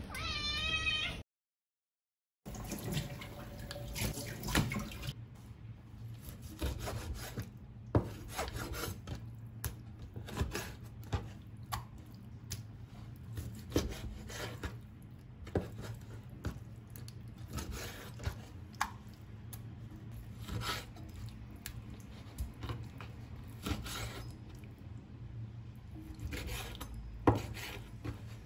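Cleaver cutting raw chicken thigh on a plastic cutting board: irregular sharp knocks of the blade striking the board, roughly one to a few a second.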